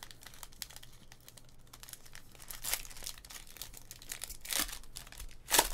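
Crinkling and rustling of trading-card packaging and cards being handled, a run of small crackles with a few louder rustles, the loudest near the end.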